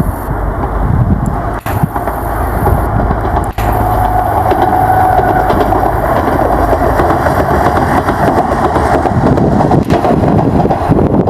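Enshu Railway 2000-series electric train passing at speed: a loud, steady rumble of wheels on rail, with a few sharp clicks early on and a whining tone that swells and fades in the middle.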